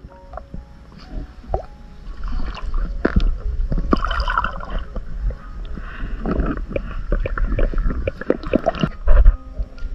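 Muffled underwater sound picked up by a submerged camera: gurgling, bubbling water over a steady low rumble, with scattered clicks and knocks.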